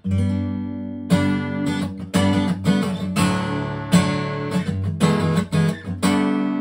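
Gibson acoustic guitar being strummed. A loud chord at the start rings for about a second, then a run of strummed chords follows.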